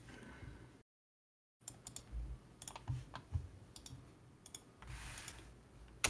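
Scattered clicks of a computer mouse and keyboard, with a short drop to dead silence about a second in.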